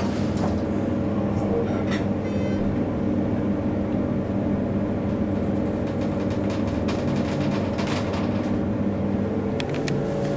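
Hydraulic elevator running: a steady mechanical hum, with a few light clicks and knocks.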